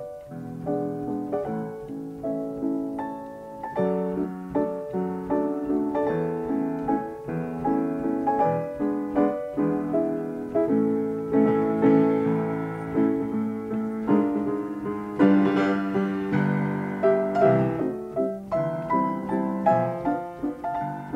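Upright player piano playing a perforated paper music roll: a quick melody over chords, the notes growing fuller and louder from about halfway through.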